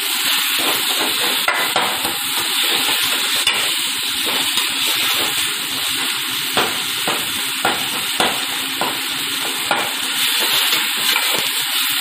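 Sliced onions, green chillies and tomatoes sizzling steadily in a stainless steel pan, stirred with a metal spoon that clicks and scrapes against the pan every second or so.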